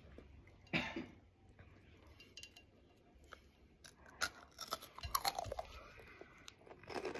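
A child biting into and chewing hot chips doused in Tapatío and Valentina hot sauce, with scattered crisp crunches that grow denser about halfway through.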